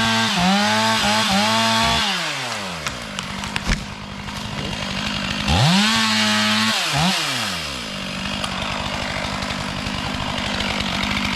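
Two-stroke chainsaw revved to full throttle and held, dropping back to idle, then opened up again in a second burst a few seconds later before settling back to idle. A few sharp clicks come in between the two bursts.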